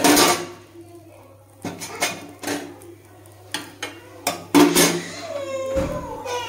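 Metal spatula clacking and scraping against a nonstick tawa as a dosa is pressed and folded: a series of sharp knocks, the loudest at the start and about four and a half seconds in.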